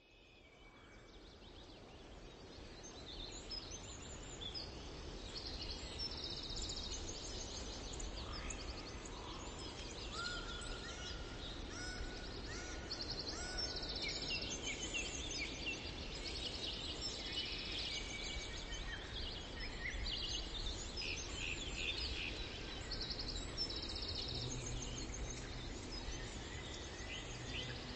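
Forest ambience: many small songbirds chirping and trilling over a steady background hiss, fading in over the first few seconds.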